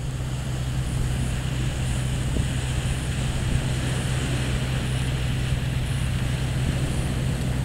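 Steady wind rumble on the camera microphone over the wash of small waves breaking on a sandy shore.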